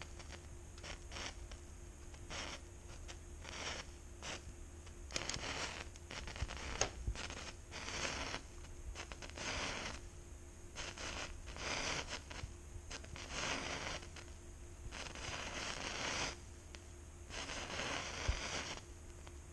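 Dancing Storm indoor firework burning, fizzing in irregular spurts of hiss with a few sharp crackles. The spurts are brief at first and become longer and louder from about five seconds in as it flares.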